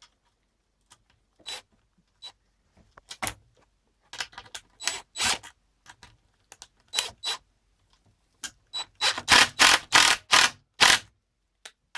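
Sharp clicks and rattles of small hard parts being handled and worked on the ski binding plate, scattered at first and coming thick and fast near the end.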